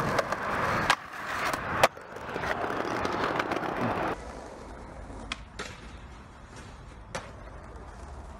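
Skateboard wheels rolling over paving stones, with two sharp clacks of the board about one and two seconds in. After a cut about four seconds in, quieter rolling with a few scattered clacks.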